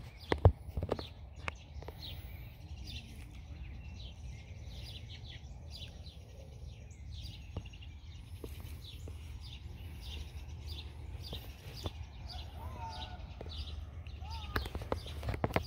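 Birds chirping over and over in short notes, over a steady low rumble. Sharp knocks and rustles from handling come in the first second or so and again near the end.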